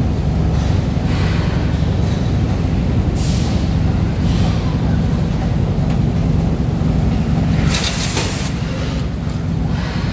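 Food-processing line machinery running with a steady low hum, with short hisses about three and four and a half seconds in and a longer, louder hiss about eight seconds in.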